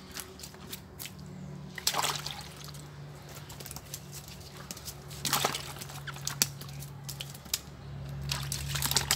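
Water splashing in a plastic bucket as live fish are dropped in and handled, with several separate splashes and small knocks.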